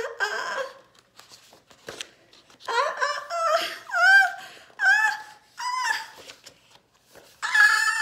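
A woman's voice acting out an elephant's building sneeze. A run of short "aaa" cries, each sliding up in pitch, is followed near the end by a long, loud held "aaaaa".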